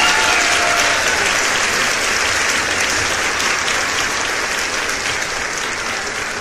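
Steady, even hiss of noise that slowly grows fainter toward the end.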